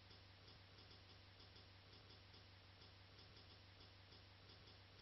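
Near silence: room tone with a faint steady low hum and faint, evenly spaced ticking, several ticks a second.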